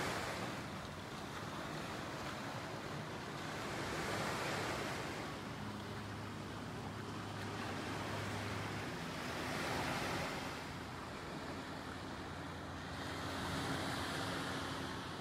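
Wind on the microphone mixed with gentle surf below: a steady rush that swells and eases every four or five seconds, over a faint low hum.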